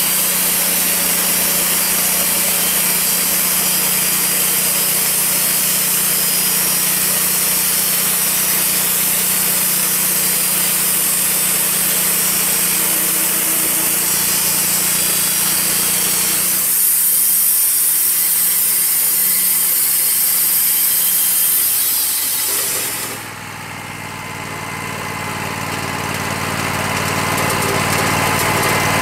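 Wood-Mizer LT40 bandsaw mill's band blade sawing through a maple log, with the mill's engine running steadily under load. About 17 seconds in the sound changes, and some six seconds later the sawing hiss stops suddenly, leaving the engine running, which grows steadily louder again.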